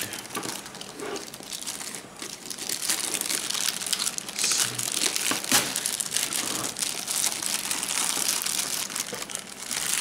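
Clear plastic packaging bag crinkling and rustling as hands grip and lift the espresso machine wrapped inside it, an irregular crackle that comes and goes.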